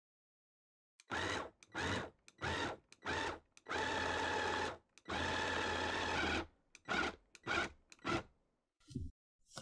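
Electric hand blender with its chopper bowl attachment, worked in pulses to cut butter and milk into flour until the scone dough turns crumbly. Four short bursts, two longer runs of about a second each, then several quick pulses near the end.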